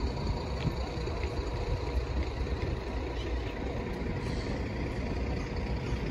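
City street traffic: vehicle engines running with a steady low rumble, over an even background hum of the street.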